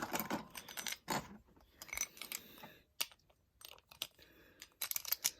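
Small plastic and metal Beyblade parts clicking and clattering together as a top is assembled by hand. There is a scattering of light clicks with short gaps between them, and a quick run of clicks near the end.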